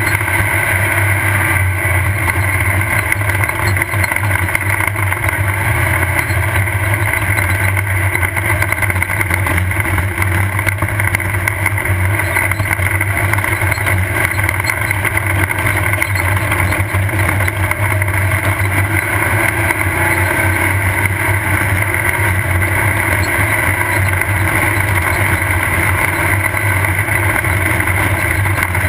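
Off-road race car's engine running hard and steadily at speed, heard from a camera mounted on the car, with no clear revs up or down.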